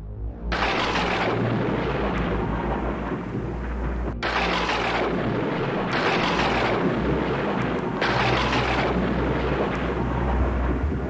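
Thunderstorm sound effect: a steady deep rumble of thunder under a rain-like hiss that swells and fades every couple of seconds, with a split-second break about four seconds in.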